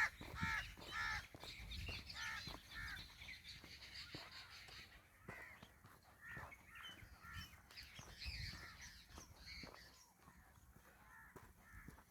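Crows cawing repeatedly, call after call, with a steady high chatter of smaller birds in the first few seconds.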